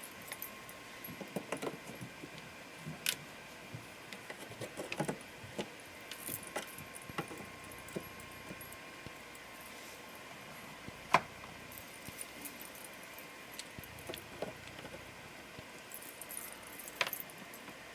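Small plastic bottles of glitter glue and enamel paint being handled and set into slots of a wooden organizer rack: scattered light clicks and taps, the sharpest about eleven seconds in.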